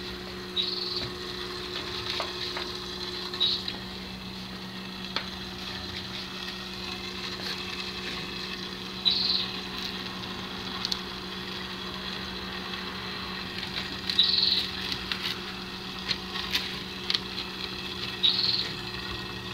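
Pond water pump humming steadily under a crackly trickle of water, with short scratchy rustles every few seconds as the mesh screen over the pond is handled.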